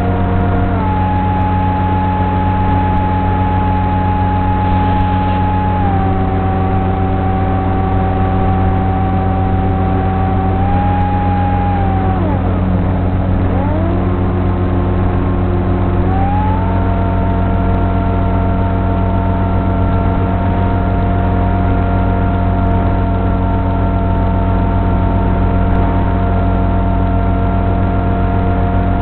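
Pusher propeller and electric motor of a Sonic Model AR Wing FPV flying wing in flight, a steady whine that shifts pitch with the throttle. About 12 s in, the throttle comes off and the pitch dives sharply, then it climbs back up about four seconds later, over a constant low hum.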